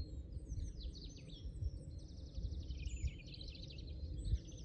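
Songbirds singing: repeated quick chirping notes, with a fast trill a couple of seconds in, over a low steady rumble.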